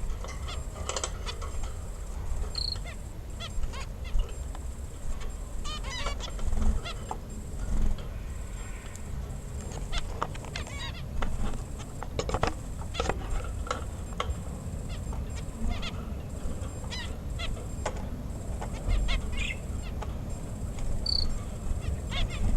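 Birds calling in many short, irregular calls, with two brief high chirps, over a steady low rumble.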